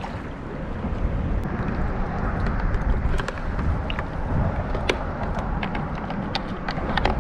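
Wind rumbling on the microphone, with a run of sharp clicks and knocks as a bait bucket's rope and metal snap clip are handled against a plastic kayak hull. The clip's spring is broken.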